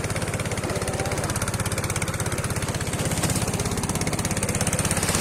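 Small fishing boat's engine running steadily with a fast, even chugging beat, over the hiss of wind and water.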